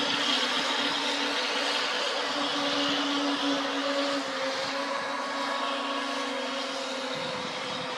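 Remote-controlled model speedboats racing: a steady motor drone over a hiss, its pitch shifting a little as the boats pass and turn, easing slightly in loudness about halfway through.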